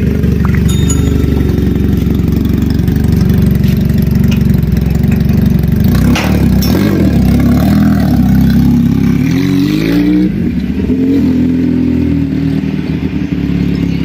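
400cc motorcycle engine running, then pulling away about six seconds in, its pitch rising steeply as it accelerates around nine to ten seconds in before settling as it moves off.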